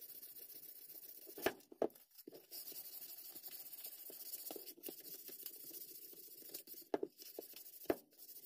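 320-grit sandpaper rubbed by hand along a wooden hammer handle: a faint, steady scratchy sanding. A few light knocks break in, a pair about a second and a half in and another pair near the end.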